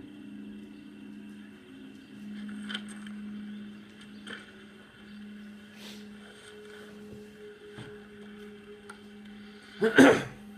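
Audio of a TV episode playing in a room: a steady low hum with a few faint clicks, then a loud, short burst of noise near the end.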